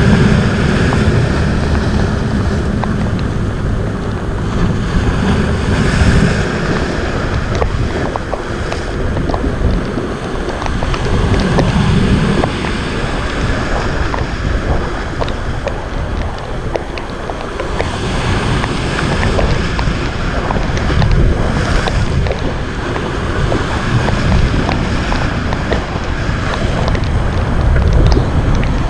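Strong wind buffeting the microphone over heavy sea surf. The roar swells and eases every few seconds, with many small clicks through it.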